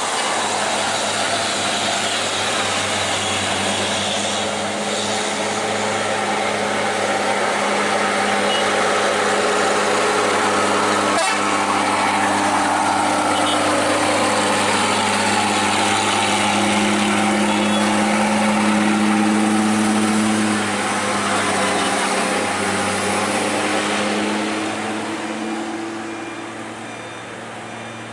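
Heavy diesel truck engine pulling steadily on a mountain climb. It grows louder as the truck approaches and passes close, then fades away over the last few seconds.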